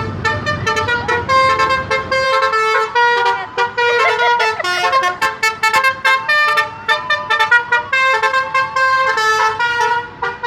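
Bus "telolet" horn: a set of multi-tone horns playing a quick tune of short notes that hop between pitches. Under the first two seconds there is a low rumble.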